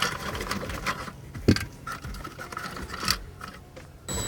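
Irregular clicks, knocks and scraping as the headliner board is handled and fitted up into the car's roof, with sharper knocks about a second and a half in and again about three seconds in.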